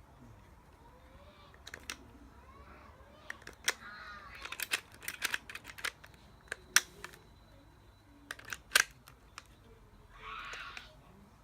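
Hard plastic toy being handled, giving a series of sharp clicks and snaps that cluster in the middle, then a brief rushing noise about ten seconds in.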